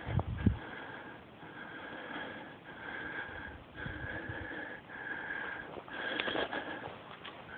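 A person's breathing close to the microphone, in and out in a steady rhythm about once a second. There is a loud low thump in the first half-second and a few softer thumps around the middle.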